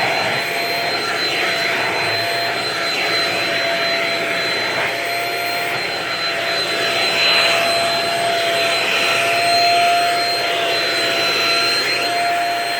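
Vacuum cleaner running steadily on couch upholstery, a constant rushing noise with a high motor whine, swelling slightly a couple of times.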